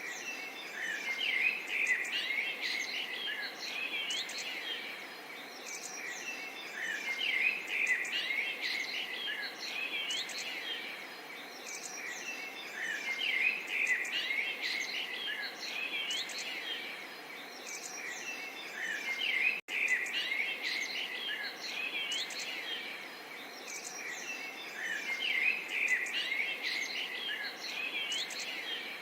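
Small songbirds chirping and twittering in quick overlapping calls over a soft, steady murmur of running water. The same burst of calls returns about every six seconds, and the sound cuts out for an instant about two-thirds of the way through.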